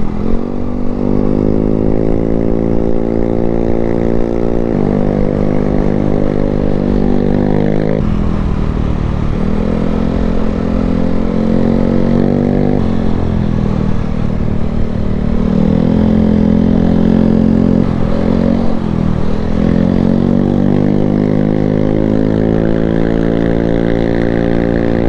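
Yamaha NMAX 155 scooter's single-cylinder engine running under way, its pitch rising and falling with the throttle through the CVT, dipping twice as the bike slows and then climbing back.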